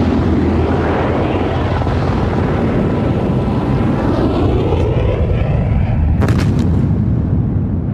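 Laser-guided missile fired from an AH-64 Apache attack helicopter: a loud, steady rushing noise of rocket motor and helicopter, whooshing up and down in pitch, with a sharp crackling burst about six seconds in as the missile strikes.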